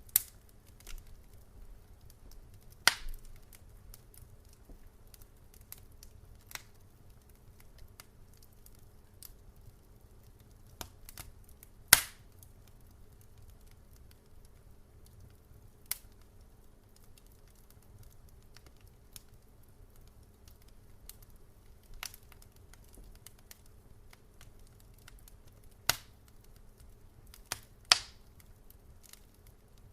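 Wood fire crackling: scattered sharp pops at irregular intervals, a few of them much louder than the rest, over a faint steady low background.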